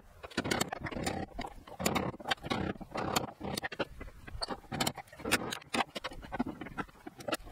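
Irregular metal clinks, knocks and short scrapes from hand work on a brush hog PTO driveshaft, as the yoke and U-joint cross are handled and fitted together.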